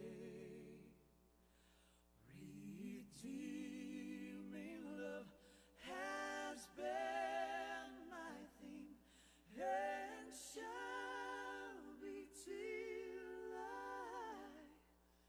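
Unaccompanied worship singing: held, sung phrases with vibrato, in about four lines separated by short breaths, the loudest about ten seconds in.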